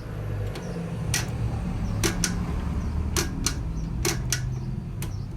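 Sharp mechanical clicks, several in quick pairs, over a steady low hum: a motorcycle's gear lever being worked to find neutral.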